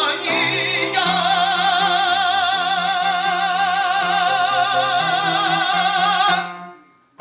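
A song from a stage musical: a singer holds one long high note with wide vibrato over accompaniment, and the music fades away near the end.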